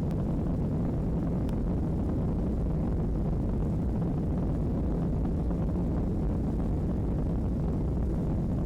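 Airliner taking off: a steady, dense low rumble of jet engines at takeoff power.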